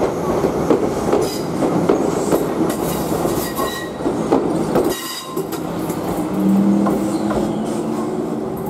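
Stainless-steel electric train passing close by, its wheels clattering over rail joints. About five seconds in the clatter drops away and a steady low hum takes over.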